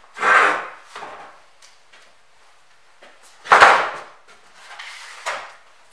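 Materials handled on a workshop bench: three short rasping noises, the loudest about three and a half seconds in.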